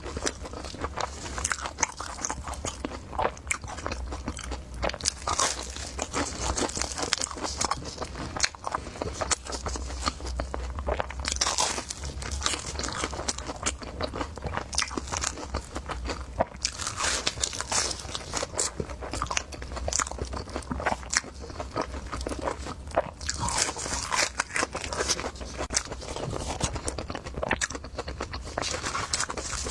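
A person biting and chewing crispy deep-fried cake close to the microphone, with irregular crunching and crackling throughout. A low steady hum lies underneath.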